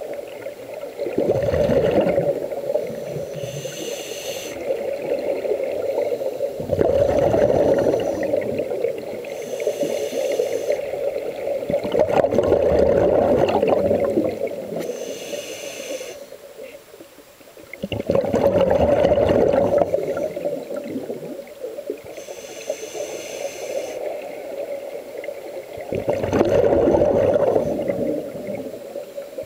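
Scuba breathing heard underwater: a regulator exhalation sends out a bubbling burst about every five to six seconds, five times, with a fainter hiss of inhalation through the regulator between the bursts.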